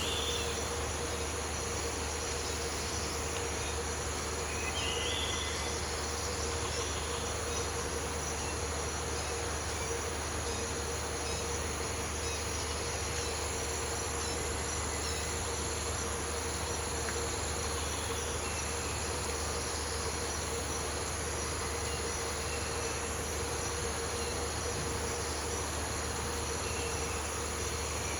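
Steady chorus of tropical rainforest insects, an unbroken drone with high, continuous tones, with a couple of brief high chirps near the start and about five seconds in.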